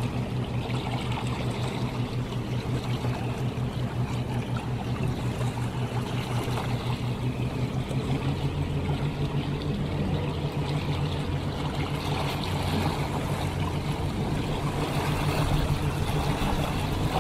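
Motorboat engine running steadily at speed, with water rushing and splashing along the hull. The engine note rises slightly about eight seconds in.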